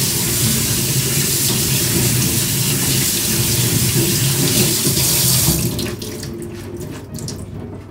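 Kitchen tap running onto chopped napa cabbage in a plastic colander in a stainless-steel sink, rinsing it. The water stops about three-quarters of the way through, leaving drips and a few light knocks as the colander is lifted.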